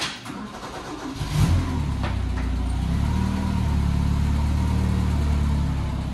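Forklift engine starting about a second in, catching with a brief rise, then running at a steady idle.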